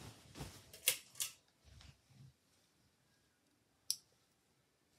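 Handling knocks and a few low footfalls as someone gets up and moves about, then quiet, then one sharp click a little before the end: a light switch turning the room light off.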